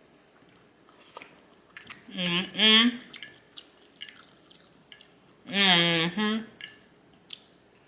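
Utensils clicking and tapping against a ramen bowl in scattered single strokes while the last noodles and egg are picked up. The loudest sounds are two short wordless voice sounds, pitch rising and falling, about two seconds in and about six seconds in.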